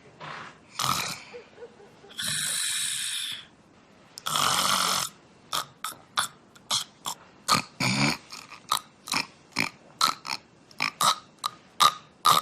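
A woman snoring heavily. Two long rasping snores of about a second each are followed, from about five seconds in, by a fast run of short snorts, roughly three a second.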